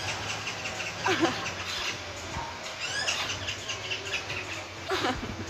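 Pet parakeet chirping and giving short calls, with a run of quick upward-gliding calls about three seconds in.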